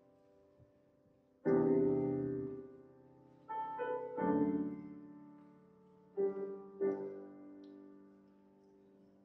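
Grand piano playing slow chords, each struck and left to ring and fade; about five chords in all, the first coming about a second and a half in.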